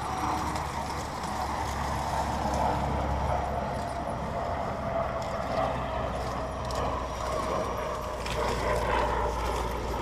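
Electric motor and gear whine of a 1/10-scale RC crawler truck crawling slowly over rocks. The whine is steady and drifts gradually lower in pitch, with a few scattered clicks of tyres and chassis on rock.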